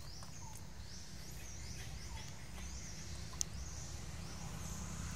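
Woodland ambience: short high chirps from a bird or insect repeat two or three times a second over a steady low rumble. A single sharp click comes about three and a half seconds in.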